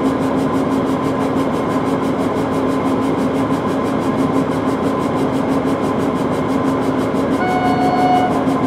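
Stadler diesel multiple unit approaching slowly, its diesel engine running with a steady hum. Near the end comes one short, single-note horn blast.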